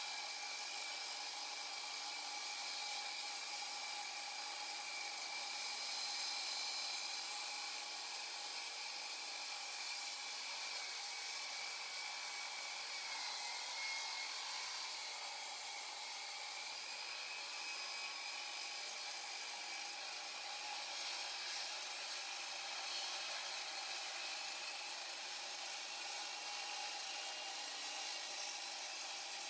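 Evolution R300DCT 12-inch electric concrete saw running steadily and cutting concrete, with a constant high-pitched motor whine. The pitch dips briefly about halfway through.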